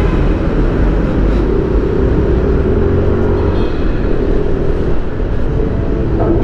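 Yamaha NMAX 155 scooter's single-cylinder engine running while riding, under a steady low rumble of wind and road noise.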